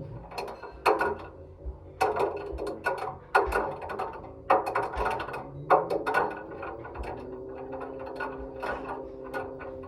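Washing machine running with a ball knocking against the turning drum, a sharp knock about once a second. About halfway through, the motor hum rises in pitch as the drum speeds up, then holds steady while the knocks get fainter.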